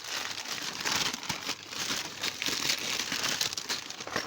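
Packaging crinkling and rustling as an item is unwrapped by hand, a continuous run of small crackles.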